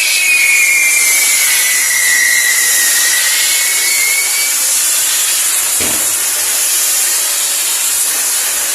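Burning pyrotechnics on a castillo fireworks tower, a loud steady hiss with a whistling tone that slowly falls in pitch over the first few seconds. One short crack about six seconds in.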